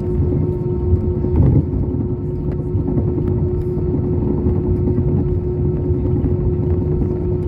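Inside the cabin of an Airbus A320 taxiing: a steady low rumble of engines and wheels with one steady hum-like tone above it, and a brief louder knock about a second and a half in.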